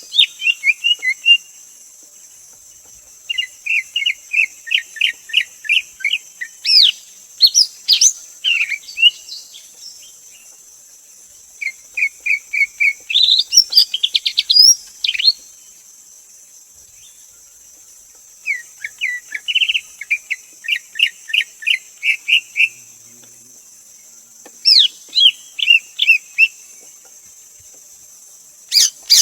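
Greater green leafbird singing: about six phrases of quick, repeated chirping notes mixed with sharp upslurred whistles, each phrase separated by a pause of a few seconds. A steady high-pitched hiss runs underneath.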